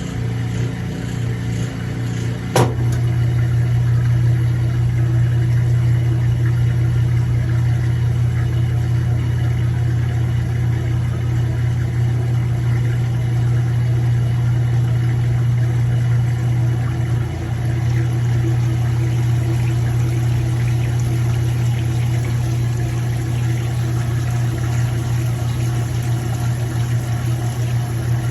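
Kenmore 80 Series direct-drive washing machine in its drain cycle: a sharp click about two and a half seconds in, then a loud steady motor hum as the transmission slips out of neutral during the drain, the sign of a bad transmission.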